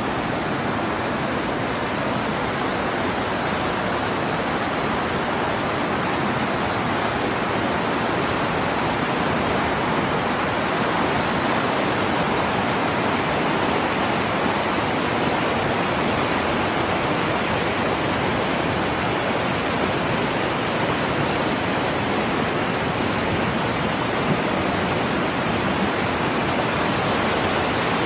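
Fast white-water river rushing over rocks: a loud, steady wash of water noise that grows a little louder near the end.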